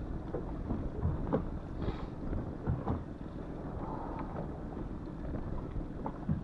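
Wind buffeting the microphone over a low rumble of choppy sea against an inflatable boat, with scattered light knocks.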